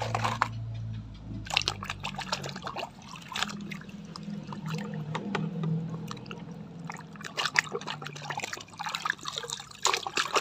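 Water splashing and sloshing in a plastic tub as a hand swishes and rubs muddy plastic toy vehicles clean, in many irregular splashes.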